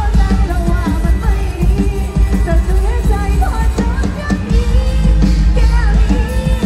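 A live mor lam band playing through a loud PA: a woman sings an ornamented, gliding melody into a microphone over electric guitars and a heavy bass.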